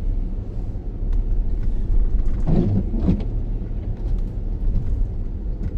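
Steady low rumble of a car driving, heard from inside the cabin, with a short louder sound near the middle.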